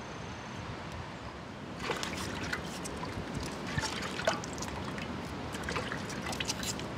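Steady outdoor wind hiss, then from about two seconds in, water splashing and trickling with small irregular knocks as hands wash food in a steel pot.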